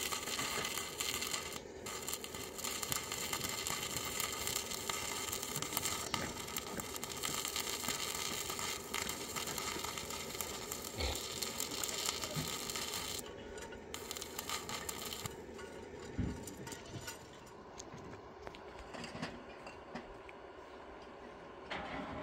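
Stick (arc) welding on a steel tube with a small inverter welder: the electric arc crackles and sizzles steadily, with brief breaks where the arc stops and is struck again, and grows quieter in the last several seconds.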